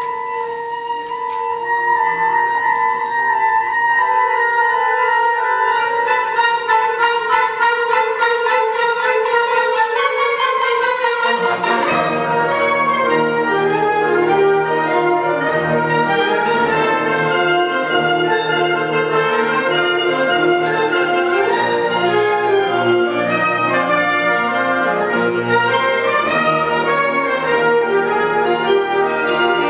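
Symphonic wind band playing. Soft held notes with a quick ticking that grows denser, then the full band comes in with deep bass notes about twelve seconds in.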